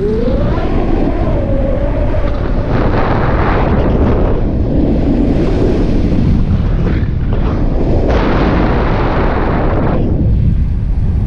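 Airflow buffeting the camera microphone of a paraglider in flight, a loud steady rush with stronger gusts about three seconds in and again from about eight to ten seconds. A thin whistle wavers and rises in pitch over the first two seconds.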